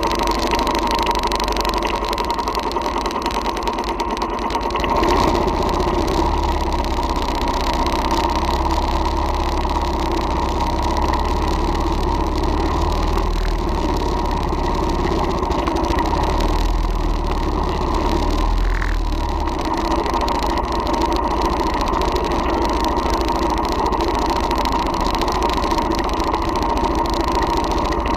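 Royal Enfield Thunderbird's single-cylinder four-stroke engine running steadily while riding, with wind rushing over the microphone that grows louder about five seconds in.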